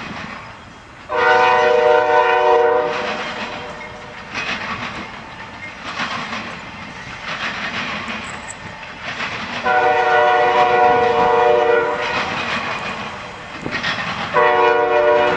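Diesel locomotive's multi-chime air horn sounding a long blast, a second long blast, then a shorter one near the end, the long-long-short pattern blown for a grade crossing. Between the blasts, the wheels of a double-stack intermodal freight train rumble and clatter on the rails.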